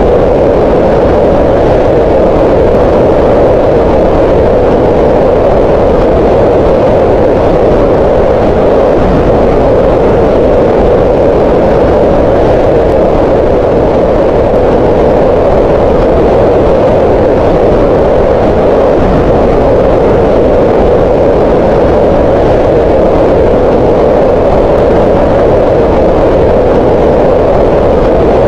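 Green noise: a loud, steady, unchanging noise with its energy in a band around 500 Hz and little high end.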